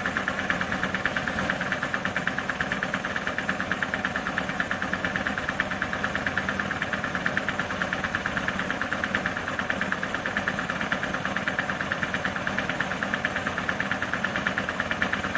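Standing electric train's onboard equipment running with a steady hum and a fast, regular pulsing.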